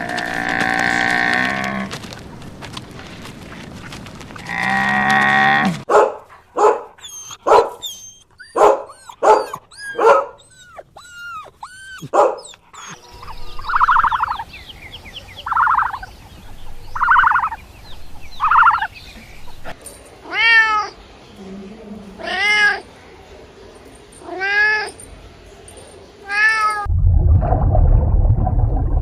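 A run of different animal calls, among them a cat meowing, heard as four arched calls in the later part. A low, rough sound begins near the end.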